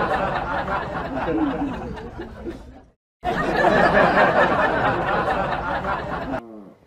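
A group of people laughing and chattering, added over the clip: the laughter fades out, stops briefly about three seconds in, then starts again just as loud.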